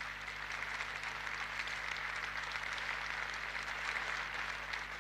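Studio audience applauding: a dense, even patter of many hands clapping, easing off slightly near the end.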